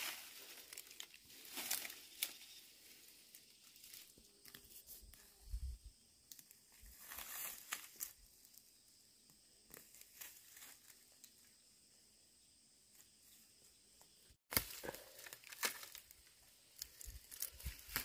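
Faint, intermittent rustling and crackling of dry grass, straw and dead leaves as weeds are pulled up by the roots and hands work through the dry ground litter.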